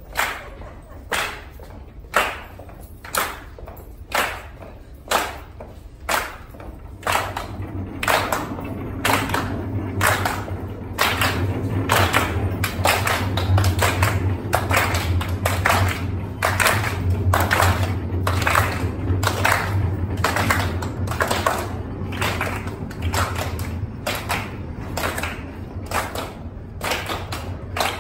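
A group of people clapping hands together in a steady rhythm, about once a second at first, then about twice a second from around seven seconds in, over a low rumble.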